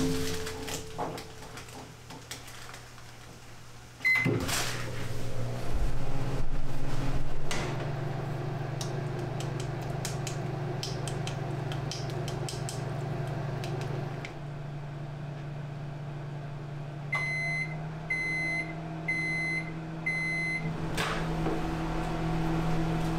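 Koizumi microwave oven: a button beep about four seconds in, then its steady hum while it heats. Near the end it gives four beeps about a second apart to signal that it has finished, followed by a click as the door is opened.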